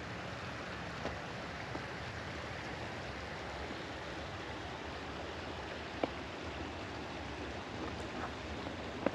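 Steady rushing of a creek flowing below, with one short tap about six seconds in.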